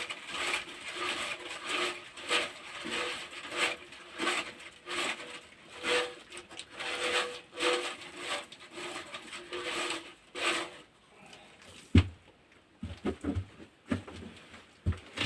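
Small broom brushing and scraping soot out of a stove-pipe joint, in quick strokes about two a second. The strokes stop after about ten seconds, and a single sharp knock follows.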